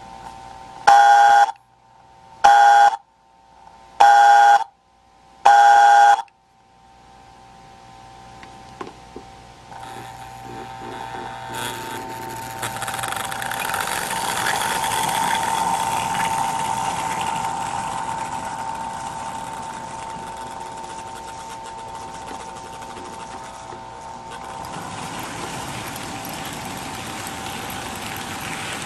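American Flyer S-gauge toy steam locomotive, a 1958 New York Central Hudson No. 21129, sounds four short whistle blasts while standing. It then starts off: the running noise of its motor and wheels on the track builds to a peak as the engine passes and settles into the steady rolling rattle of the freight cars.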